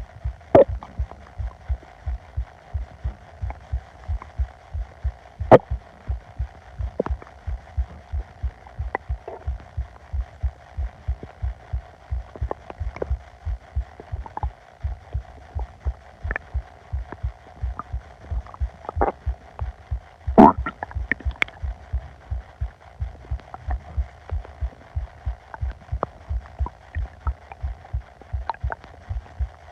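Upset stomach recorded close up: a steady low pulse beats about twice a second, with short gurgles and squeaks from the gut over it. The loudest gurgles come about five seconds in and about twenty seconds in.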